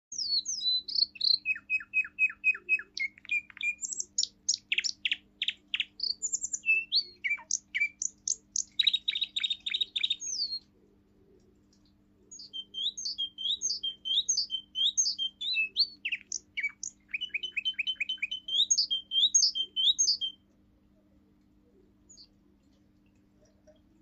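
Young male Russian song canary singing a 'forest tune' song of rapid trills and fast repeated chirping notes. It sings two long phrases, the first about ten seconds and the second about eight, with a pause of about two seconds between them.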